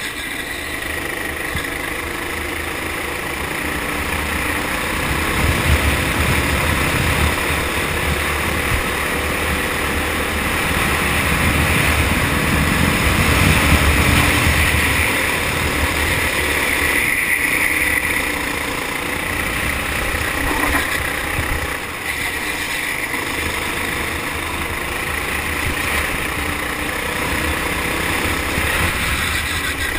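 Four-stroke kart engine running at speed, heard from onboard together with a rush of wind and track noise. The sound is continuous and grows louder toward its peak around thirteen to fourteen seconds in, then eases slightly.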